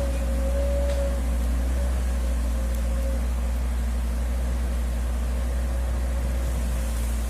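Hitachi excavator's diesel engine running steadily with a deep, even rumble, plus a faint high whine that fades out about three seconds in.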